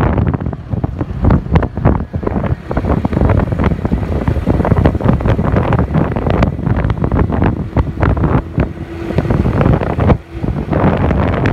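Wind buffeting the microphone of a camera on a moving scooter, loud and gusty, with a brief drop about ten seconds in.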